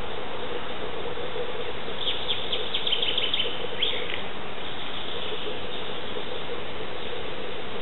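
A rapid series of short high chirps for about two seconds, from a small wild animal, over a steady background hiss.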